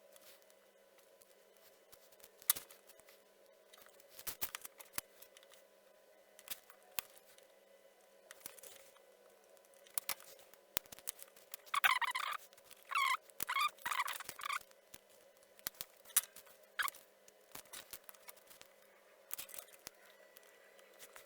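Scattered sharp clicks and snips from small hand tools working the leads of electronic components, with three short squeaks a little past the middle.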